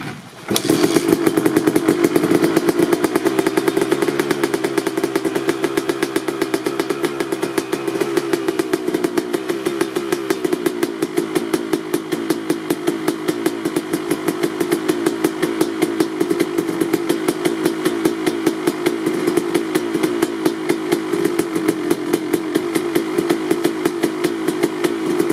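Cold start of a KTM SX 250 single-cylinder two-stroke engine breathing through a Pro Circuit R-304 stainless shorty silencer: it catches about half a second in. It runs a little higher and louder for the first several seconds, then settles into a steady idle of rapid, even exhaust pulses.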